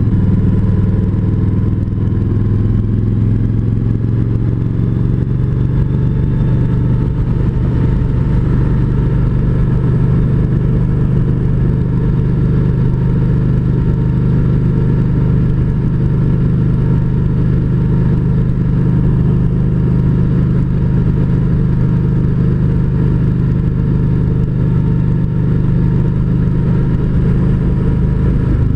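Kawasaki Voyager 1700's liquid-cooled V-twin engine running steadily while the motorcycle is ridden, its pitch shifting a little in the first few seconds and then holding steady at cruise.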